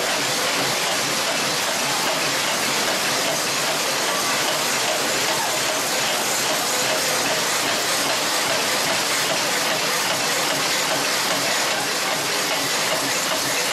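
Screw-making machinery running in a factory: a steady, even din with no distinct strokes.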